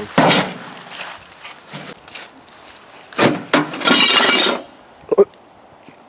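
An air-powered punching device striking a microwave oven: a sharp hit at the start, two more hits about three seconds in, then a longer clatter of glass and metal as the oven's front panel breaks off.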